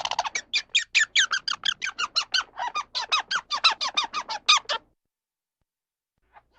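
An animal calling in a rapid series of short, high, squeaky chirps, about six a second, each sweeping down in pitch; the calls stop abruptly about three-quarters of the way through.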